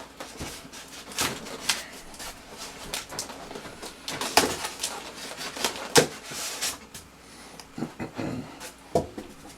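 Kit parts and packaging being handled: scattered rustles, clicks and light knocks, the loudest about six seconds in.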